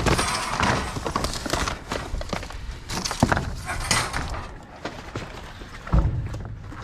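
Scrap being shifted around in a metal dumpster: irregular clattering, scraping and knocks, with a sharp knock about three seconds in and a heavy thud near the end.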